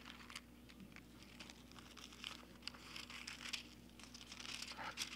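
Thin Bible pages being leafed through by hand: a faint papery rustling with small flicks and crinkles, busiest in the second half.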